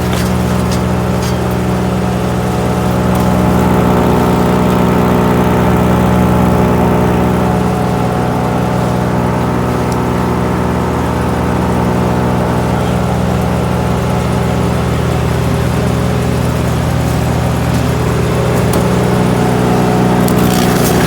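GreenMech Arborist 150 wood chipper's engine running steadily at a constant speed, with no wood going through the cutters.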